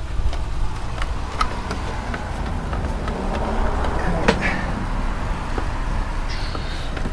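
Rubber coolant hose being worked through the engine bay toward the firewall by hand, with a few light clicks and knocks, over a steady low rumble.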